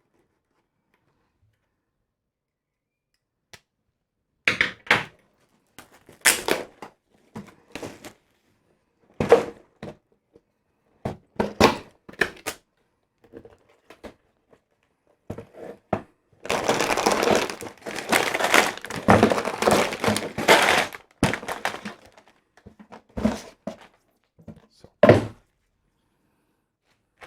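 Cardboard kit box being opened and unpacked by hand: scattered thumps and knocks of cardboard and contents, with about five seconds of continuous rustling of packaging in the middle.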